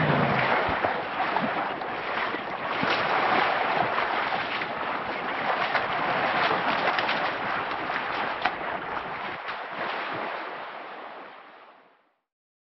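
Steady rushing noise like wind on the microphone, with scattered faint crackles, fading out to silence about a second before the end.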